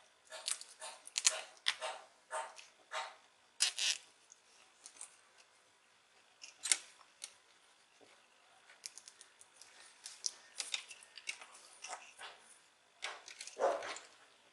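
Small plastic cable tie being worked and pulled tight around insulated wires by hand: irregular small clicks and rustles of plastic and wire handling, coming in two clusters, with a longer rubbing sound near the end.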